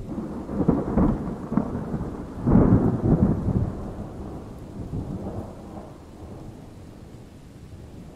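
A thunderclap with a deep rolling rumble. It peaks about a second in, cracks louder again around three seconds in, then rolls away and fades.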